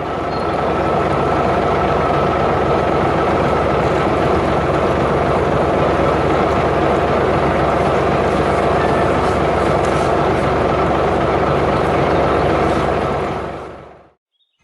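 A steady, loud engine running, fading out near the end.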